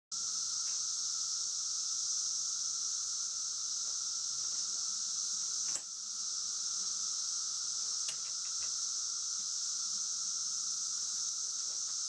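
A steady, high-pitched insect chorus drones on without a break, with a second, lower steady tone beneath it and a few faint clicks, one with a brief dip about six seconds in.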